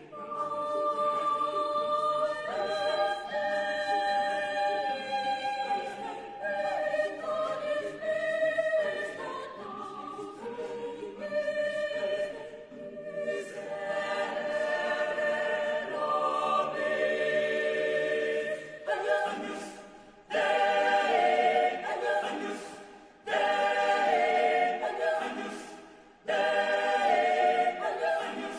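Mixed chamber choir singing a cappella in several parts, holding sustained chords. Later on, the singing breaks into short loud phrases, each starting suddenly and dying away, about every three seconds.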